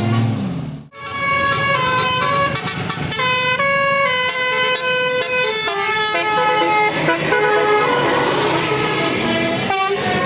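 Bus telolet horn, a multi-trumpet musical air horn, playing a tune of short and held notes that step up and down in pitch. It starts about a second in, just after a brief siren-like rise and fall that cuts off abruptly, and stops shortly before the end.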